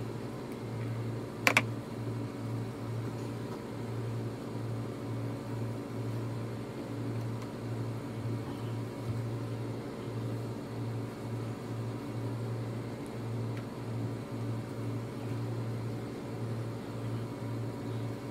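A steady low mechanical hum that throbs slightly, with one sharp click about one and a half seconds in.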